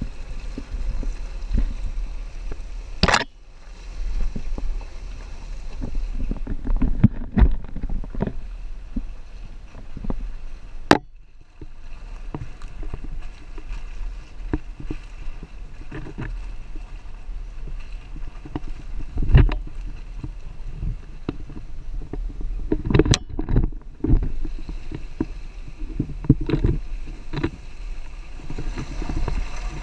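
Off-road 4x4 driving over a rutted, muddy forest track, heard from a camera mounted on the outside of the vehicle: a steady low rumble of engine and wind with frequent thumps and knocks as it bounces through the ruts, and three sharp, louder knocks about 3, 11 and 23 seconds in.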